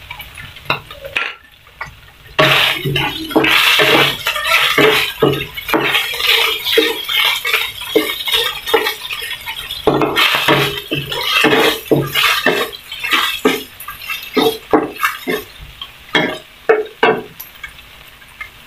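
A spatula scraping and knocking against a nonstick frying pan as ground pork is stirred and fried. After a brief pause about a second in, the strokes come steadily, about two a second.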